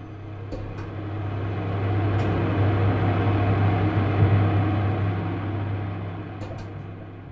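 Steady low machine hum with a broad mechanical rumble that swells up to a peak midway and fades away again, with a few faint clicks.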